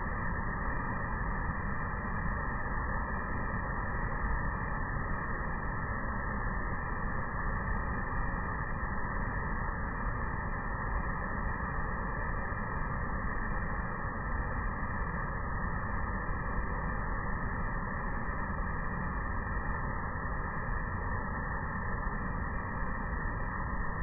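Waterfall: water rushing steadily over the rock lip, a constant even wash of noise.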